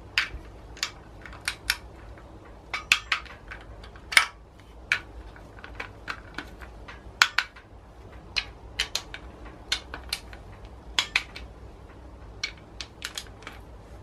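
Hand ratchet on a long socket extension clicking in short strokes, tightening the bolts of a BMW N47 diesel engine's oil sump. The clicks are sharp and irregular, mostly in quick runs of two to four.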